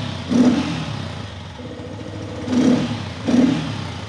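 Motorcycle engine fitted with a UNI aftermarket air filter, idling and blipped on the throttle: one short rev just after the start, then a quick pair of revs near the end.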